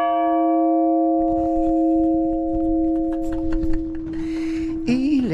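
A large church tower bell ringing on after a single strike, several tones at once slowly dying away, the higher ones fading first and the deep hum note holding longest.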